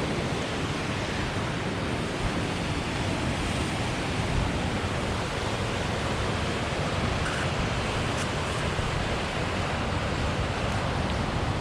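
Steady rushing noise, even in level throughout, with a fluttering low rumble.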